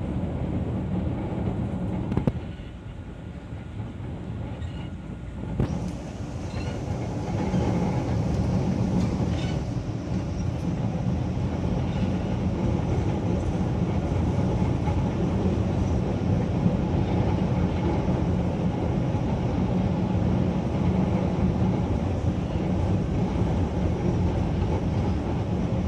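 MRT-3 metro train running, heard from inside the carriage: a steady rumble of the train in motion. It drops quieter for a few seconds near the start, with a sharp click as it drops and another as it comes back, then runs louder and steady from about six seconds in.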